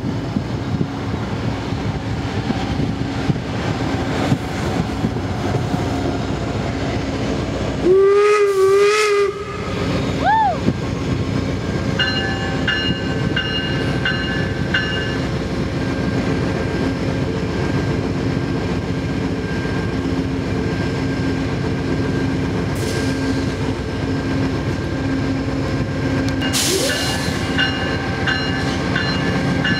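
Amtrak GE P42DC Genesis diesel locomotive drawing into the station at the head of its passenger train, its engine running steadily. It sounds one short horn blast about eight seconds in. From about twelve seconds on, a bell rings at roughly two strokes a second.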